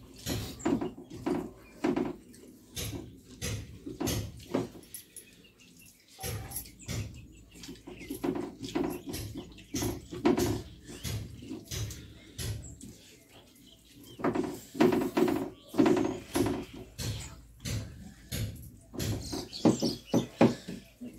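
Close-up eating sounds: mouths chewing and smacking on rice and mashed vegetables, with fingers mixing rice on steel plates, in short irregular bursts.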